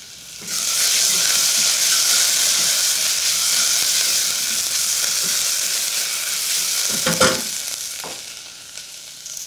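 Finely diced onions sizzling in hot oil in a stainless steel saucepan while being stirred with a spatula. The sizzle starts suddenly about half a second in, holds steady, and dies down near the end. A single knock about seven seconds in.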